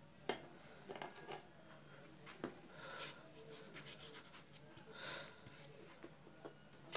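Flat paintbrush spreading thick paint across a blank board: faint brushing and rubbing strokes, the clearest about three and five seconds in. A few light knocks and taps come in the first couple of seconds.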